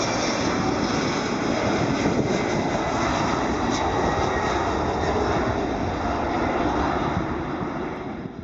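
Jet airliner passing with its engines running, a loud steady noise with a few high steady tones, mixed with wind buffeting the microphone; it fades near the end.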